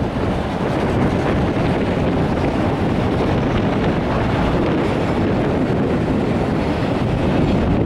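Autorack freight cars rolling past on the rails: a steady, even rumble of wheels on track, mixed with wind buffeting the microphone.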